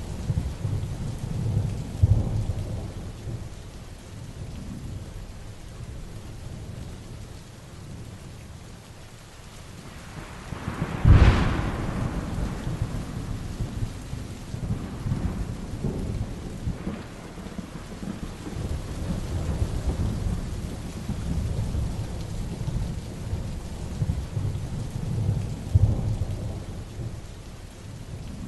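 Heavy rain falling steadily through a thunderstorm, with low rolling thunder rumbling on and off. Partway through, a sharp, close thunderclap cracks out, the loudest moment, and rumbles away.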